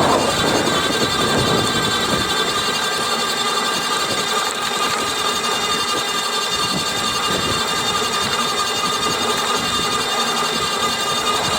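GoCruiser's electric drive running steadily under load, with a steady whine of several tones over a rattling noise. This is the rattle the owner hears when the power draw is between about 670 and 725 watts.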